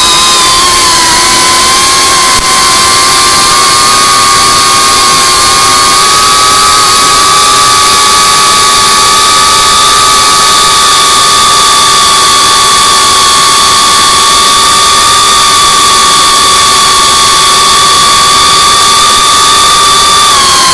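FPV quadcopter's brushless motors and propellers whining at a steady cruising throttle, one loud held pitch that starts to fall right at the end as the throttle comes off.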